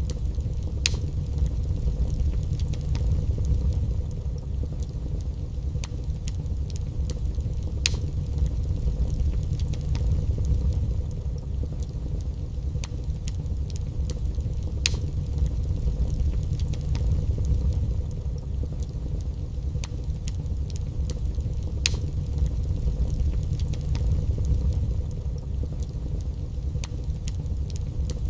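Wood fire burning in a fireplace: a steady low rumble with scattered sharp crackles and pops from the burning logs every few seconds.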